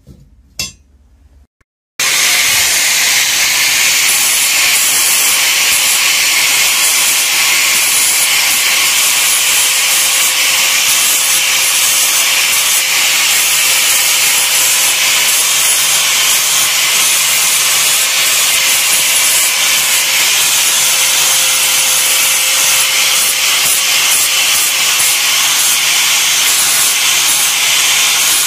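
Angle grinder grinding a thin plasma-cut sheet-steel part with a steady, loud grinding noise that starts abruptly about two seconds in. It is taking off the last cutting dross that an acetic-acid soak left behind.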